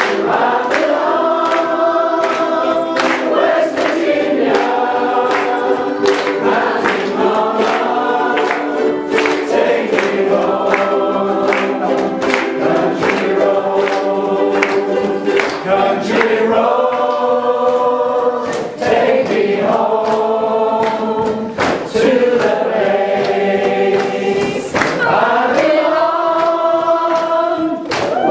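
A ukulele group singing in unison and harmony over strummed ukuleles, the voices holding long notes between a regular strumming beat.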